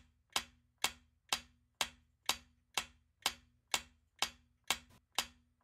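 Quiz countdown timer ticking: short, dry clicks at a steady pace of about two a second, each with a brief low note under it.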